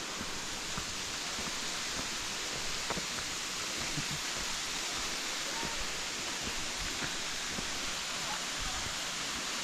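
A steady, even rushing noise with a few faint ticks scattered through it.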